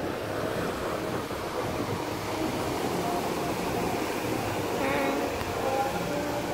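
Surf breaking and washing up onto a sandy beach, a steady rush of waves.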